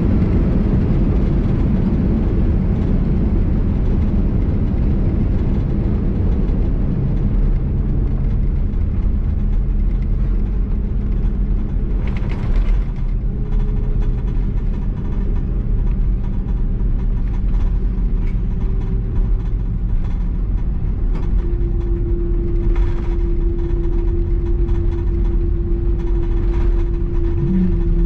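Steady low rumble inside the cabin of an Airbus A330-200 rolling on the ground after landing, with a steady hum joining about three-quarters of the way through and a couple of faint clicks.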